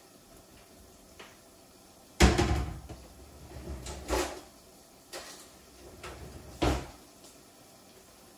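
Kitchen cupboard doors and drawers being opened and knocked shut while someone searches for tongs: a loud bang about two seconds in, then three more knocks over the next few seconds.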